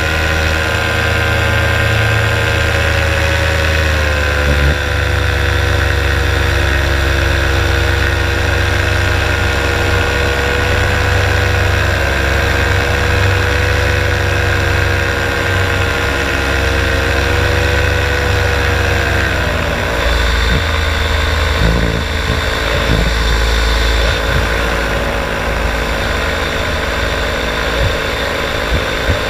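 Paramotor engine and propeller running steadily in flight, with wind rumble on the microphone. Engine speed drops slightly about four seconds in and again about two-thirds of the way through.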